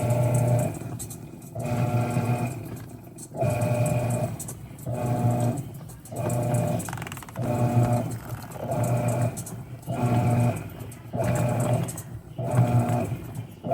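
Mueller Popmatic 8 kg washing machine in its wash action: the motor runs in short bursts about once a second, each with a steady hum, churning the load back and forth.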